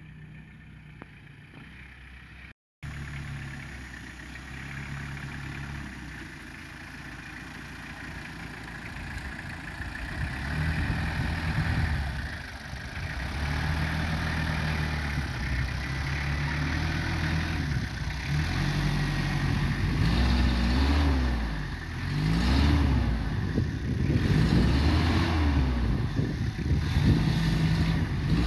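Lifted Toyota Hilux double cab's diesel engine working in low gear over rough, rutted grass. It grows louder as the truck comes close, then revs rise and fall again and again as it climbs over the ruts.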